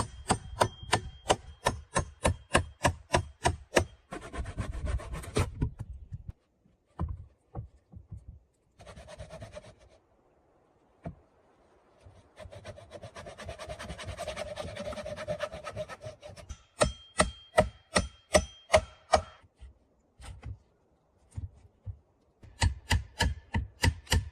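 Hand tools working logs: quick, even runs of chopping blows on wood, about three to four a second, broken by stretches of steady scraping on wood.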